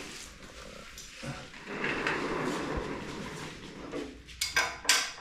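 Rebuilt Ford 302 Windsor V8 short block being turned over by hand: a rough scraping drag from the crankshaft and new piston rings moving in the honed bores, coming in two stretches. Three sharp metal clinks near the end.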